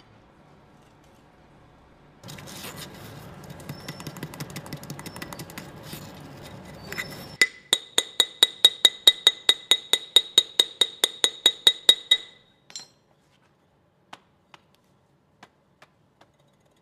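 Scraping and rubbing on cast iron, then a fast run of sharp metal taps, about four a second, each ringing with a clear high tone, as sand is cleared from a freshly cast iron kettle and the casting burr is knocked off. A few faint ticks follow near the end.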